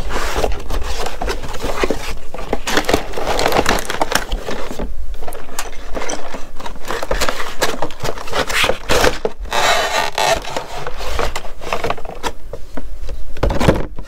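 A cardboard model-kit box being opened and a clear plastic parts tray slid out of it: a continual run of clicks, scrapes and rustles from cardboard and plastic handled close to the microphone.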